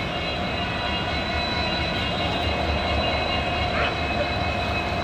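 Diesel locomotive approaching at the head of a passenger train, its engine giving a steady low rumble with a steady high whine over it.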